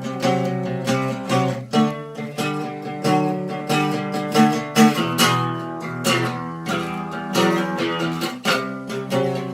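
Acoustic guitar strummed in a steady rhythm, chords with no singing over them.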